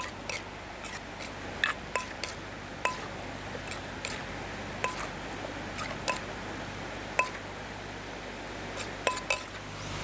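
A spoon clinking against a terracotta mortar as spicy salad is stirred and scooped: about a dozen sharp, irregular clinks that ring briefly, over the steady rush of water running over a weir.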